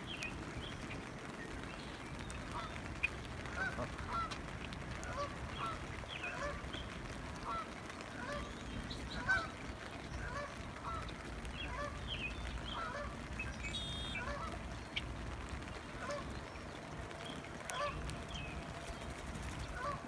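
Geese honking on and off, many short calls scattered through the time.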